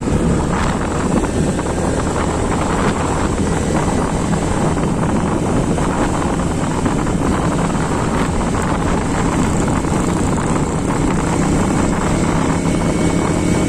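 A vehicle running steadily, a loud, even noise with no breaks.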